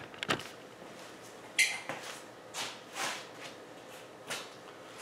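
Scattered handling noises of someone moving about at a workbench: a few soft knocks and shuffles at irregular times, with a sharper, brighter clink about one and a half seconds in.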